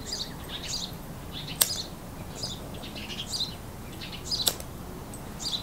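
Small birds chirping repeatedly, in short high twittering phrases. Two sharp clicks stand out, one about a second and a half in and one about four and a half seconds in.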